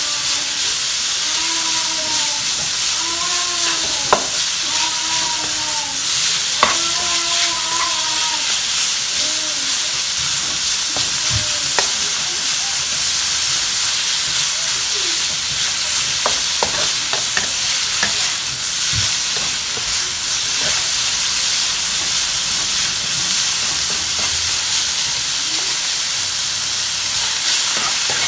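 Meat sizzling in a hot pan as it is stir-fried, a steady frying hiss with occasional sharp clinks of the utensil against the pan. Several short rising-and-falling whining cries sound over it in the first eight seconds or so.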